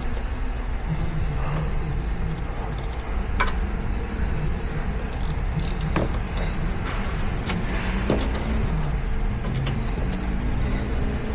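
A steady low hum with scattered sharp clicks and taps throughout, from hand tools being worked on metal parts.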